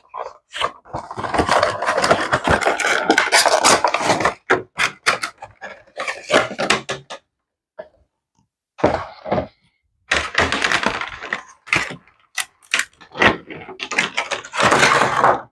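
Cardboard Funko Pop box being opened and the vinyl figure pulled from its clear plastic insert: crackling, rubbing and scraping of cardboard and plastic, in bursts with two short pauses about halfway through.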